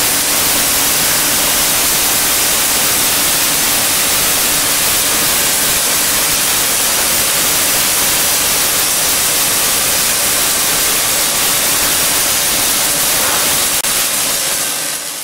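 Steady hiss and crackle of the welding arc from a LoneStar automatic orbital welding bug laying a girth weld on a 48-inch steel gas pipe, fading out near the end.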